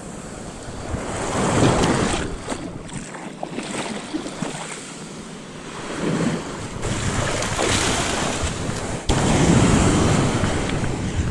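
Ocean surf washing on a beach, with wind buffeting the microphone. The noise swells and eases, loudest about two seconds in and again through the second half.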